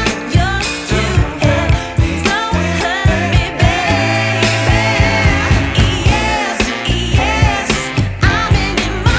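Background music: a song with a sung vocal line over a steady drum beat.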